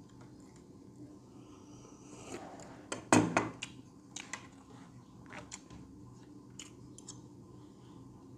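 Close-miked eating sounds: a sip from a mug, then a loud thud about three seconds in as the mug is set back down on the table, followed by chewing and scattered light clicks of a metal fork against a plate.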